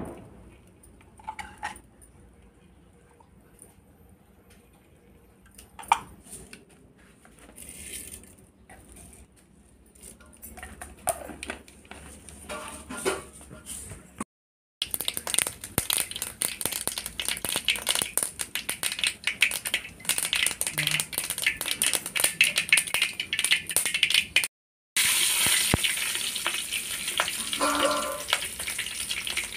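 Cooking oil sizzling and crackling in an aluminium karahi over a wood fire, heavier and steadier near the end once green vegetable pieces are frying in it. The first half is quieter, with a few light clinks of the pan and oil jar.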